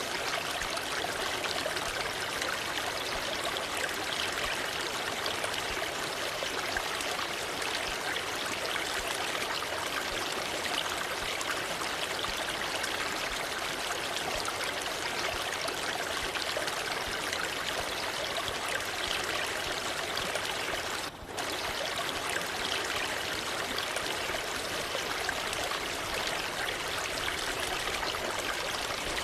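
Waterfall water rushing and splashing in a steady, even hiss, with one brief dip in level about two-thirds of the way through.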